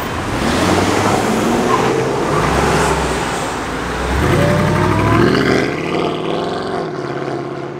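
Mercedes AMG E-Class sedan's V8 pulling away from the kerb: a deep exhaust rumble with the revs climbing, loudest about four to five seconds in, then fading as the car drives off.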